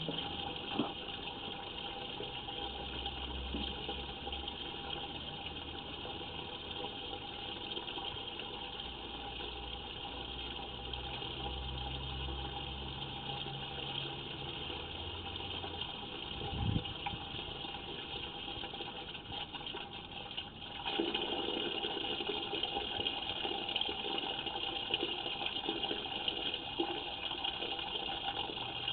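Steady rush of running water, with a low hum underneath for the first half; the rush grows louder about 21 seconds in.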